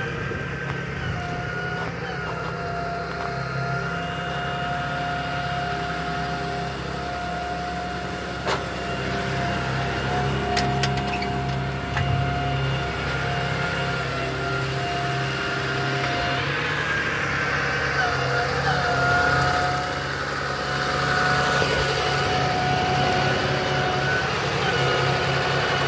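2010 Dodge Ram 4500 picker truck's engine idling steadily, with a steady whine laid over it.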